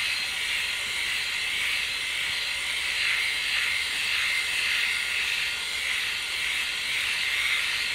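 Flawless Legs electric shaver running with a steady high whirring hiss, its rotating heads moved over the skin of a leg. The whine wavers slightly as the shaver is pressed and circled.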